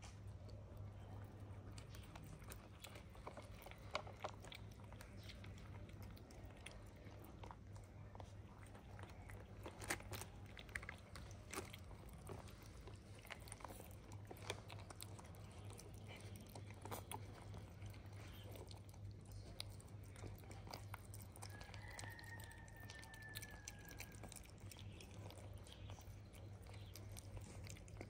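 Kitten chewing wet cat food and dry kibble: faint, irregular crunches and clicks.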